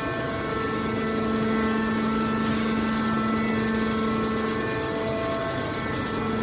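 Hydraulic baler's power unit running: a steady machine hum with a constant whine above it.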